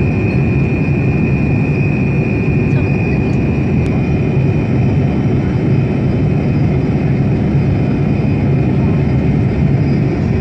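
Steady cabin noise of a Boeing 787 Dreamliner at cruise altitude: a loud, even rush weighted low. A thin high whine runs over it and weakens about four seconds in.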